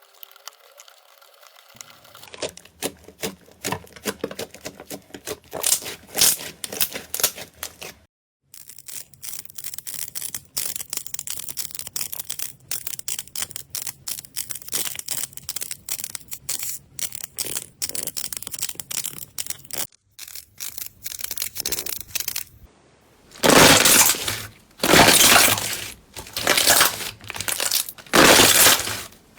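Slime being pressed and squeezed by hands, crackling and popping densely, then near the end a run of loud crunches about a second apart.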